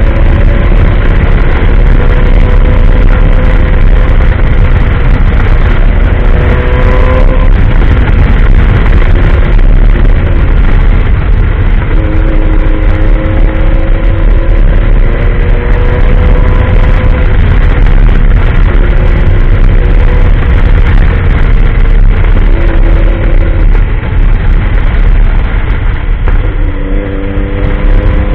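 Motorcycle engine running while riding off-road, its pitch rising and falling with the throttle. A heavy, steady low rumble of wind and ground noise runs underneath.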